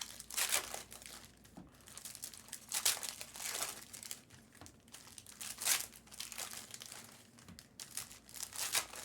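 Plastic or foil wrapping crinkling and tearing as it is handled, in a series of short rustles.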